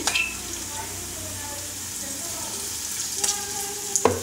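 Batter-coated green chillies (mirchi bajji) deep-frying in hot oil in a kadai, a steady sizzle, with two sharp clicks near the end.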